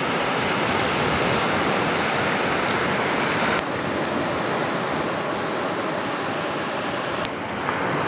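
Steady rushing of surf and wind on an open beach, with small abrupt shifts in level about three and a half and seven seconds in.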